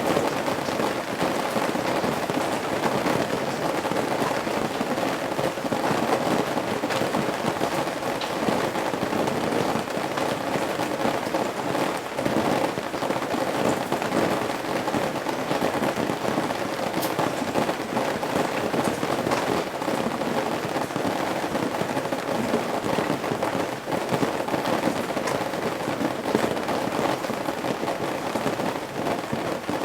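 Steady rain falling on and running off the eaves of a roof: a dense, even hiss of many small drop impacts.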